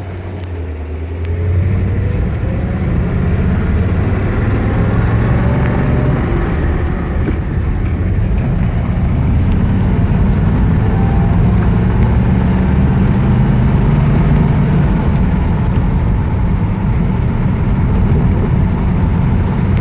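1956 Ford Thunderbird's 312 Y-block V8 pulling the car away, its pitch rising through the first several seconds as it gathers speed, then running steadily at cruise along with road noise, heard from inside the car.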